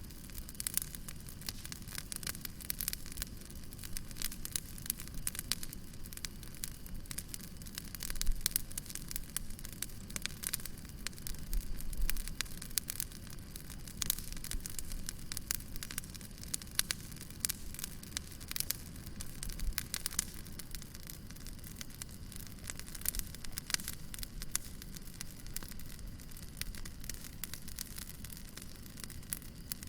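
Wood fire crackling steadily, with dense irregular crackles over a low steady rumble of the flames.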